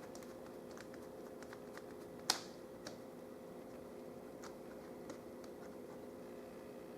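Faint small clicks of a screwdriver and tiny screws being worked out of a laptop screen's metal mounting rail, with one sharper click a little past two seconds in, over a steady faint hum.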